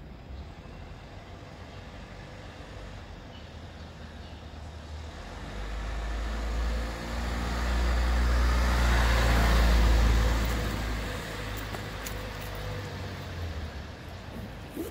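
A motor vehicle driving past, its engine and tyre noise growing louder over a few seconds, loudest a little past the middle, then fading away.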